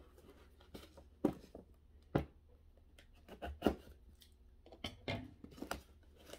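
A cardboard display box being handled and opened by hand: irregular sharp knocks and taps against the cardboard, with rustling of cardboard and plastic packaging between them.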